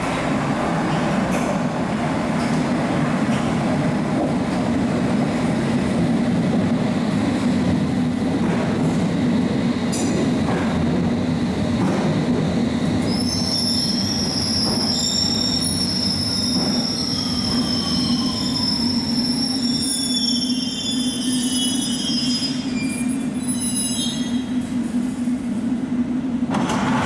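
London Underground S stock train running into the platform and braking to a stop, a steady rumble throughout. From about halfway, high-pitched squealing from the wheels and brakes, with a falling whine as the train slows.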